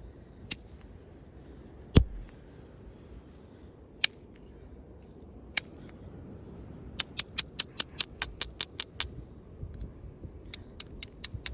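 Hornstone being flint knapped: sharp clicks of stone on stone, with a loud strike and thump about two seconds in, a few single taps, then a quick run of light ticks at about six a second in the second half as small flakes are worked off the blade's edge.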